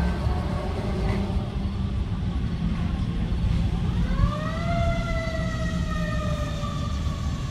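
An emergency vehicle siren starts about four seconds in: one quick rising wail that then slowly falls, over a steady low rumble.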